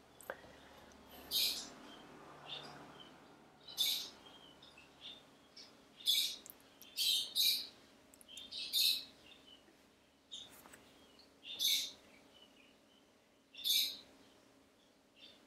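Birds chirping: about eight short, high chirps, spaced irregularly, over a faint steady hum.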